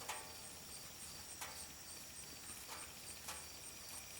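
Cattle grazing, with a few faint, sharp rips of grass being torn off about a second or so apart, over insects chirping in an even high pulse.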